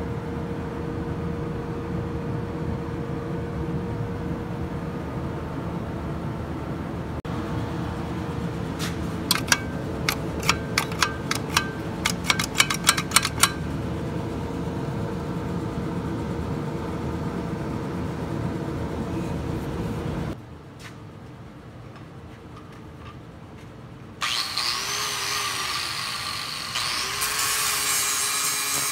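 A steady machine hum with a quick run of sharp clicks midway; it cuts off, and after a short lull an electric angle grinder bites into the rusty steel brake lever, loud and hissy, its whine dipping and recovering under load.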